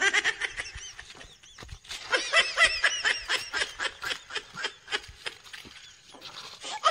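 Laughter in quick, high-pitched repeated bursts, easing off briefly about a second in and again near the end.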